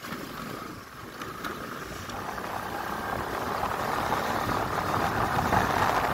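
Motorcycle running along the road, its engine noise mixed with wind rushing over the microphone, growing steadily louder.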